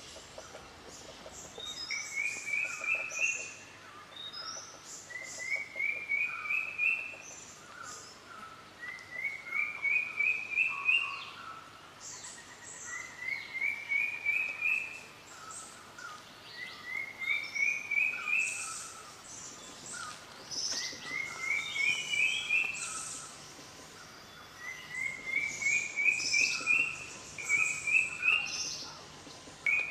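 Forest birds calling: one bird repeats a short phrase of about six quick notes that step up in pitch, roughly every three to four seconds, while other birds add scattered higher chirps.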